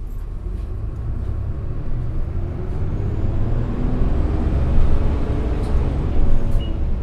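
Isuzu Erga city bus's four-cylinder turbo-diesel engine, heard from inside the passenger cabin, running as the bus pulls away and gathers speed, growing steadily louder.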